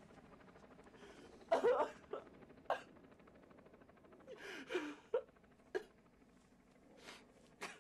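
A man sobbing hard: irregular bursts of gasping, whimpering cries and sharp breaths, the loudest about one and a half seconds in.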